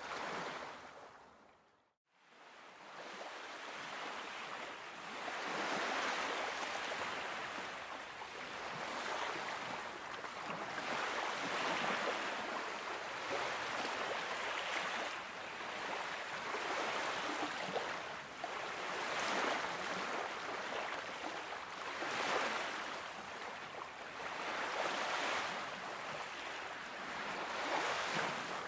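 Small Baltic Sea waves washing onto a sandy shore, a steady hiss that swells and eases every few seconds. The sound fades out to silence about two seconds in and fades back up.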